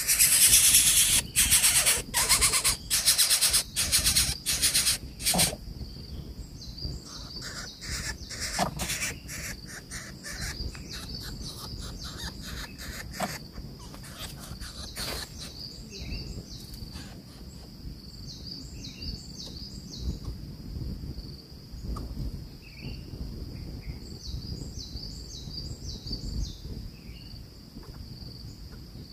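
Insects droning steadily at a high pitch. For about the first five seconds, a fast run of loud scratchy rasping noises comes from the coucal's nest of dry palm fronds, and faint chirps follow now and then.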